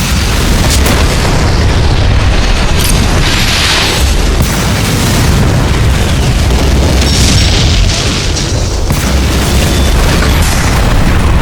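Animation sound effects of continuous explosions: a heavy, unbroken low rumble of booms with a few sharp cracks on top and a brief hissing blast about four seconds in.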